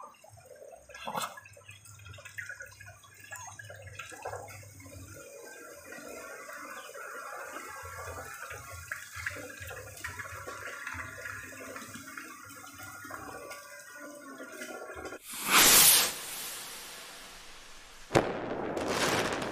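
Quiet ambience of a Muscovy duck pen with faint bird calls and low rumble, then a loud rushing whoosh about fifteen seconds in and a second one about three seconds later: intro transition sound effects.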